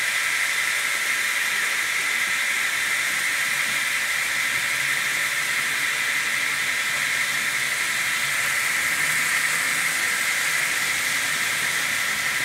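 The DCC sound decoder in an N gauge Fleischmann BR110 electric locomotive model plays its running sound through the small onboard speaker as the model creeps along at very low speed. It is a steady rushing hiss with a few faint steady tones in it.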